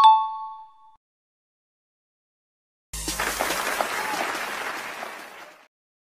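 A two-note 'correct answer' chime ringing out at the start and fading within a second. About three seconds in, a sudden burst of cheering and applause sound effect starts and lasts about two and a half seconds.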